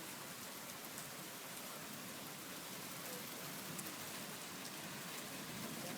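Heavy rain mixed with hail falling steadily, a continuous hiss with faint scattered ticks of impacts through it.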